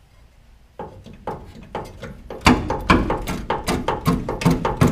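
A run of knocks and taps on the rusty sheet-steel plating of the van's chassis leg as it is handled. They are sparse at first, then come loud and steady, about two or three a second, from about halfway.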